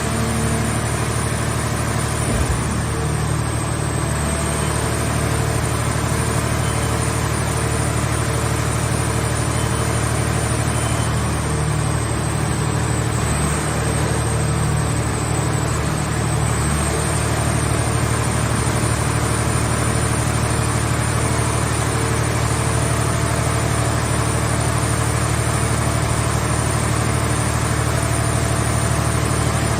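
Mobile car scrap baler's engine-driven power unit running steadily, with a constant low hum and a thin high whine that wavers slightly in pitch.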